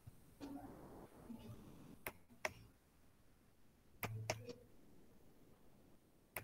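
Three pairs of sharp clicks, about two seconds apart, over faint room hiss and a faint, muffled voice.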